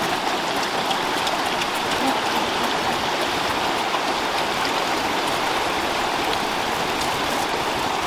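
Shallow rocky stream flowing over stones: a steady rush of water with faint small splashes.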